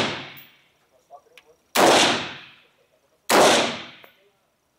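Two single gunshots about a second and a half apart, each trailing off over about a second, with the fading tail of a shot fired just before.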